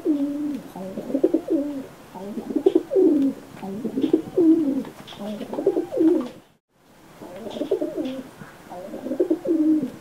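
Domestic pigeons cooing over and over, low rolling coos that repeat about once a second. The sound drops out completely for a moment about two-thirds of the way through, then the cooing resumes.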